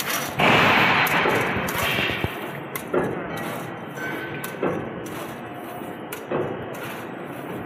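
Heavy rapier wire mesh loom running, with a sharp knock about every second and a half as each weaving cycle comes round, over a steady mechanical clatter. A loud rushing noise fills the first two seconds.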